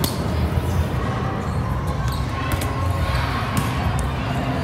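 Volleyballs being hit and bouncing in a large, echoing sports hall: several sharp knocks, a few seconds apart, over a steady low hall din.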